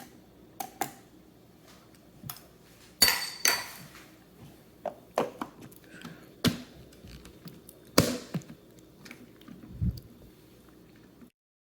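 Scattered clinks and knocks of dishes and utensils being handled during kitchen food preparation, about a dozen separate sharp strikes. The sound cuts off abruptly near the end.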